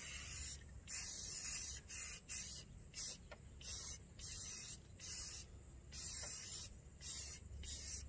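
Aerosol can of Rust-Oleum gray primer-and-paint spraying in short hissing bursts, about a dozen, each half a second to a second long, as the nozzle is pressed and released.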